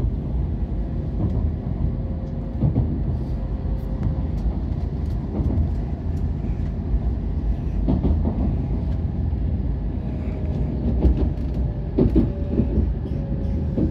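Shinkansen bullet train running, heard from inside the carriage: a steady low rumble with a few scattered knocks and a faint whine that drifts slightly lower in pitch near the end.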